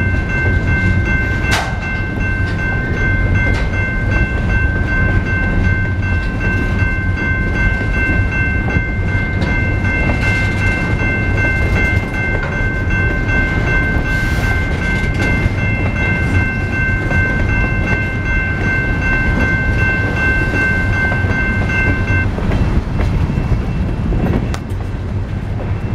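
Freight train of covered hopper cars rolling past a grade crossing, a steady low rumble and clatter of wheels on rail, with the crossing bell ringing over it. The bell stops sharply about 22 seconds in, once the last car has cleared and the signals switch off.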